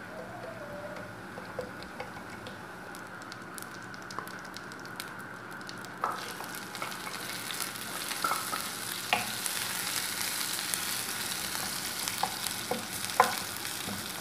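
Cumin seeds sizzling in hot oil in a frying pan, with scattered clicks and taps as a wooden spatula stirs them. From about six seconds in, the sizzle grows louder and fuller as chopped garlic and ginger go into the oil, and a sharp knock of the spatula on the pan comes near the end.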